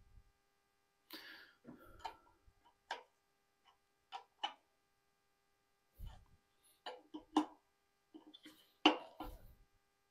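Scattered metal clicks and ticks of a wrench on high-pressure oil line fittings being tightened, irregular and a few seconds apart, the loudest near the end.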